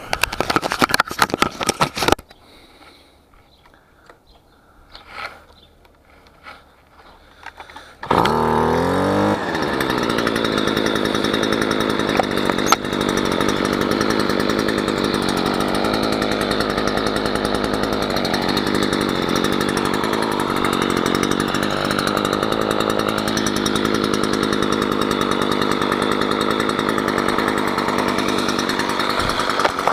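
Stihl FS 55 brush cutter's small two-stroke engine being started: a two-second burst of noise at the start, then about eight seconds in it catches, revs up and settles into a steady run.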